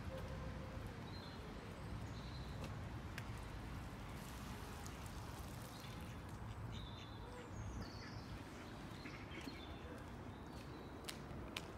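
Steady low outdoor rumble with scattered light clicks of footsteps on wet pavement, and several short, high bird calls.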